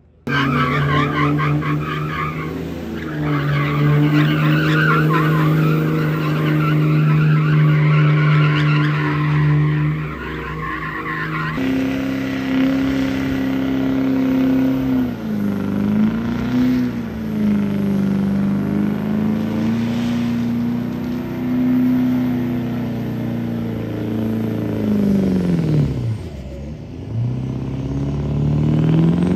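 Diesel pickup trucks doing burnouts: the engine is held at high revs while the rear tires spin and scrub on the pavement. About 12 seconds in, a second truck's engine takes over, its revs dipping and climbing back twice.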